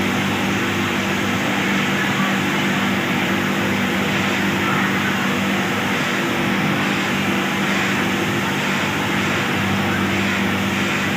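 Steady din of a garment factory sewing floor: industrial sewing machines running, over a constant low hum.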